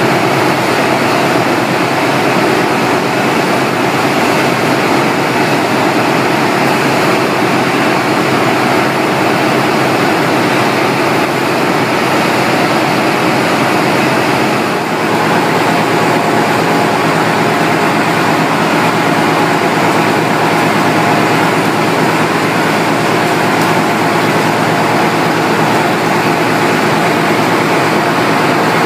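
Steady din of a poultry processing line: water spraying from overhead nozzles over the carcasses and the shackle conveyor machinery running, with a brief dip about halfway through.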